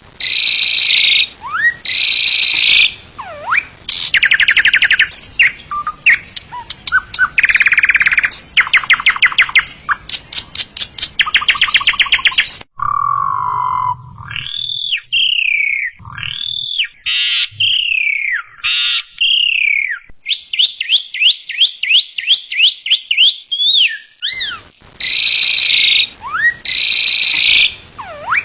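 Javan myna calling in a varied, loud sequence of harsh buzzy notes, fast rattling trills and sliding whistles. About halfway through it changes abruptly to a run of whistled, arching phrases over a low hum, then the rapid rattles return.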